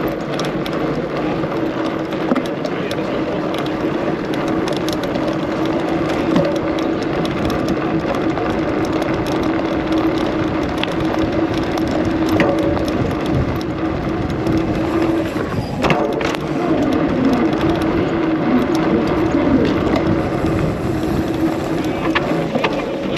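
Fat-tyre bike rolling fast over cobblestones, heard from a camera mounted beside the knobby rear tyre: steady tyre noise and rattling with a constant hum that breaks off briefly about two-thirds of the way through.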